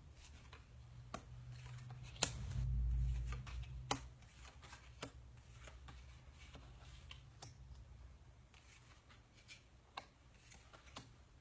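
Tarot cards being dealt out onto a table one after another: soft irregular taps and slaps of the cards, with a dull low bump about two seconds in.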